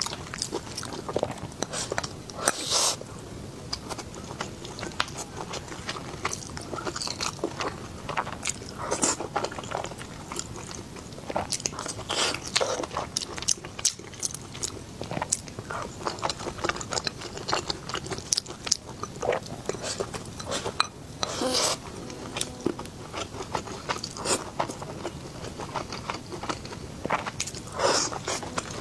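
A person eating: biting and chewing food, heard as irregular short sharp mouth clicks, with a few louder bites scattered through.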